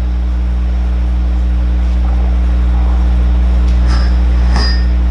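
A loud, steady low electrical hum with a buzz: mains hum in the microphone and sound-system feed. There are a couple of faint clicks near the end.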